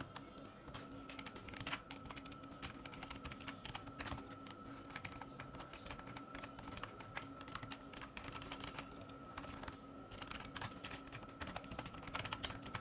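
Typing on a computer keyboard: a continuous run of quick, irregular key clicks, fairly faint.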